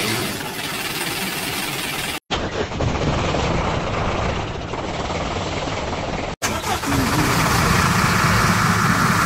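Three back-to-back, digitally altered versions of a diesel truck engine starting and running, each cut off abruptly, about two seconds in and again about six seconds in. The middle version is duller, and the last has a steady whine over the engine's low throb.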